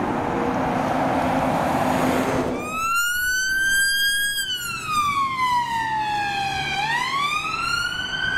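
Road and engine noise of passing vehicles, cut off about two and a half seconds in. Then a siren wails: a single tone that rises, falls slowly over a couple of seconds, and rises again.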